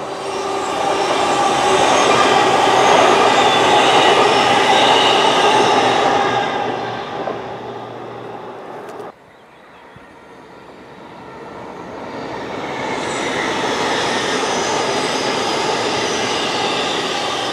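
A TransPennine Express class 802 passenger train passes at speed, its rushing wheel-and-rail noise with a steady hum fading as it goes away. The sound cuts off suddenly about nine seconds in, then builds again as another TransPennine Express train passes.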